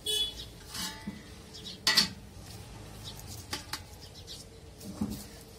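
Stainless steel plate clanking with a brief metallic ring: two sharp knocks, one at the start and a louder one about two seconds in, then a few lighter knocks as cooked chicken filling is shaken out of a charred pineapple onto it.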